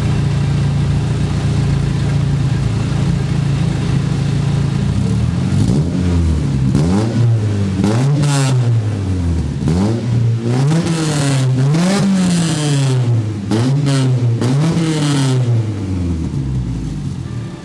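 Mitsubishi Eterna GTI's engine heard through a newly fitted NDK aftermarket exhaust with twin tips: idling steadily, then blipped through a run of quick revs, each rising and falling, from about five seconds in, and dropping back to idle near the end.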